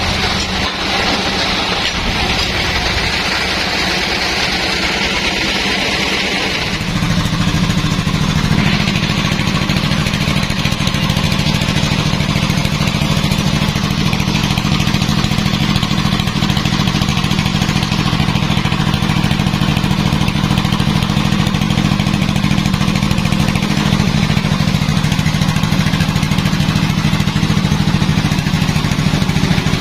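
Sawmill machinery running steadily. About seven seconds in the sound changes: a higher hiss drops away and a deeper, steady hum takes over.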